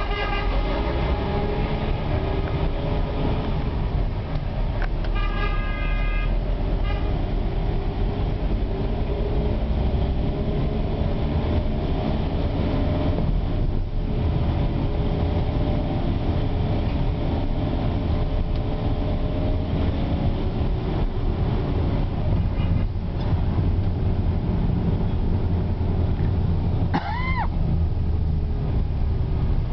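Car traffic heard from inside a moving car: a steady engine and road rumble on a rain-wet street, with several short car-horn toots about five to seven seconds in. A brief tone rises and falls near the end.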